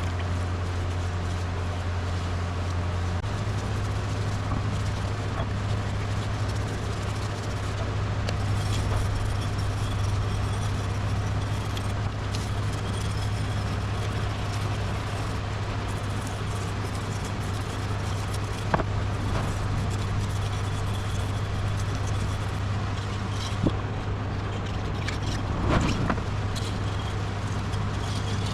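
Powered sanding tool with a 400-grit disc running steadily with a low motor hum and the hiss of abrasive on metal, refacing the sealing face of a VW Beetle rear hub seal carrier. A few light clicks near the end.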